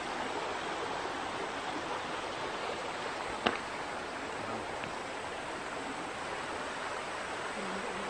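Shallow stream rushing over rocks, a steady hiss of running water. One sharp click about three and a half seconds in.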